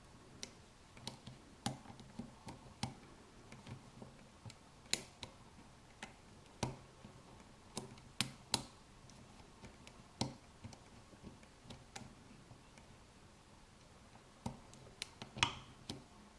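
Lock pick working the pins of a Yale 5-pin pin-tumbler cylinder: faint, irregular metallic clicks and ticks as the pins are lifted against the tension wrench. Near the end comes a louder click, a pin setting at the shear line.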